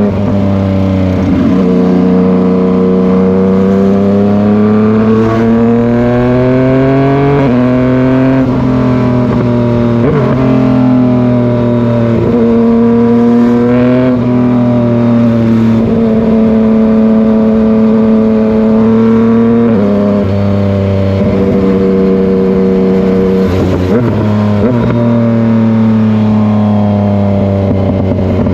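Yamaha MT-09's inline-three engine running steadily, its pitch stepping up and down every few seconds with brief rising sweeps. There are short crackly breaks at several of the changes.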